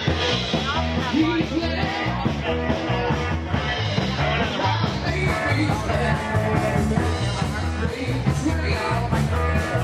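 Rock music with a steady beat and a strong bass line.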